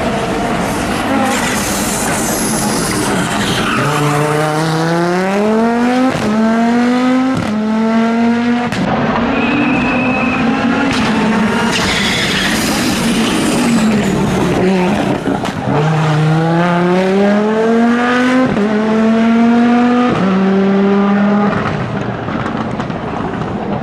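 Audi Quattro S1 rally car's turbocharged five-cylinder engine accelerating hard through the gears, the pitch climbing and dropping back at each quick upshift. This happens twice, first from about four seconds in and again about two-thirds of the way through, with off-throttle running between.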